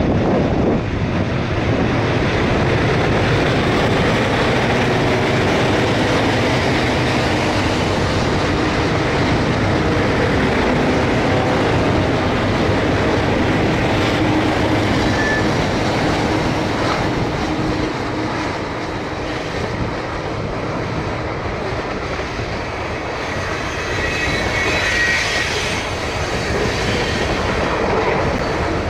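ALCO diesel locomotives of a loaded coal train working uphill as they pass close by, then the loaded coal hopper cars rolling past with wheels clicking over rail joints. A brief high wheel squeal comes near the end.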